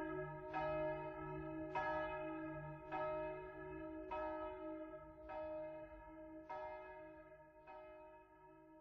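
A single church bell tolling, struck about once every 1.2 seconds, its hum ringing on between strokes, growing fainter toward the end.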